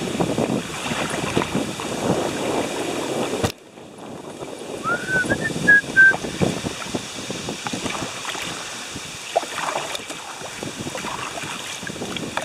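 Double-bladed paddle dipping and splashing through river water stroke after stroke, with wind on the microphone. The sound drops off abruptly a few seconds in, and soon after a bird calls a short run of chirps that rise and then hold level.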